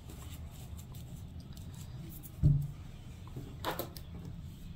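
Steady low room hum with quiet handling sounds from hands working a plastic seed-starting tray of peat cells: a soft thump about halfway through and a short rustle about a second later.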